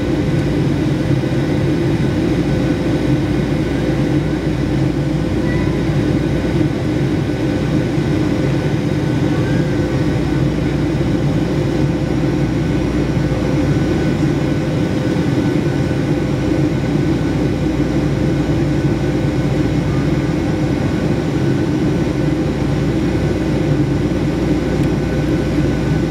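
Boeing 757-200 cabin noise during the climb after takeoff: the jet engines and rushing air making a steady, loud noise, with a faint steady hum over it.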